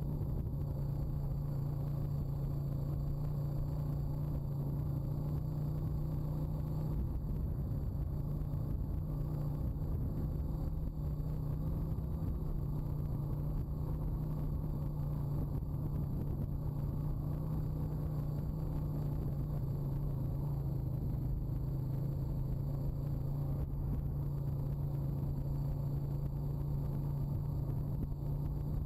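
Honda quad's single-cylinder four-stroke engine running steadily at an even, low speed while riding over rough grassy ground, a constant drone with rumble beneath.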